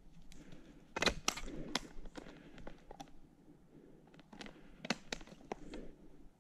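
A trapped wolf struggling and biting: irregular sharp snaps and clacks, a cluster of loud ones about a second in and another near five seconds, as its jaws hit a catch pole and it thrashes through twigs and forest litter.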